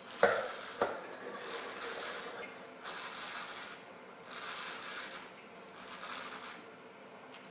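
A taster draws air through a mouthful of red wine to aerate it, in four hissing slurps of about a second each. Before them, near the start, come two sharp knocks as the wine glass is set on the wooden table.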